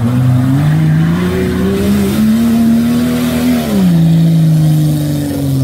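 Off-road 4x4's engine revving hard under load, its pitch climbing in steps over the first two seconds, then dropping sharply about three and a half seconds in and holding steady.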